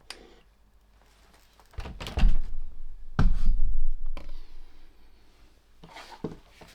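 Two heavy thumps with rubbing and scraping, about two seconds in and again a second later, then a few lighter knocks near the end, as a vintage radio receiver's metal chassis and case are handled on the workbench.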